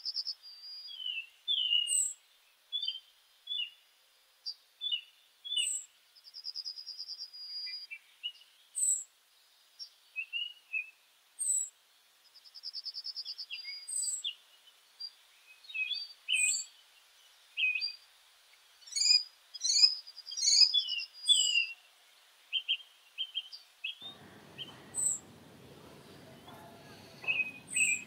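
Small birds chirping: many short, high chirps about a second apart, with a few brief trills. A low, even background noise comes in near the end.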